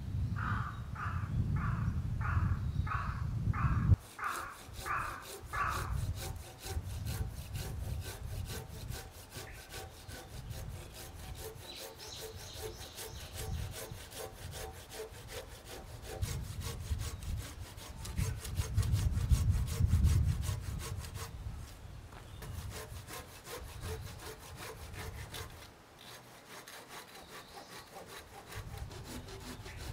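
Japanese pull saw cutting into a chestnut beam with steady back-and-forth rasping strokes, about two a second at first. After about four seconds the strokes turn quicker and finer.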